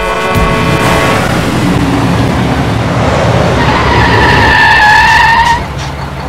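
A large vehicle rushing up and skidding to a stop, with a squeal held for about two seconds at the loudest point, then its engine running low and steady.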